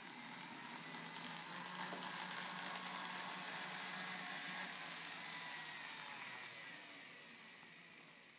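HO scale Climax locomotive model's small electric motor with flywheel, belt drive and Flea gearboxes running under power: a quiet, smooth whir with a low hum and a thin high whine. It grows louder over the first couple of seconds and dies away near the end.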